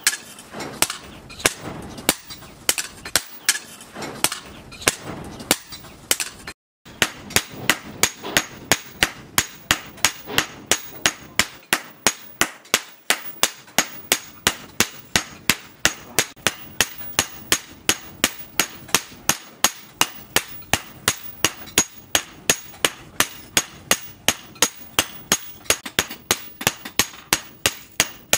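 Hammer blows forging a red-hot steel cleaver blade on a round steel post anvil: sharp metallic strikes, about two and a half a second, with a short break about a quarter of the way in.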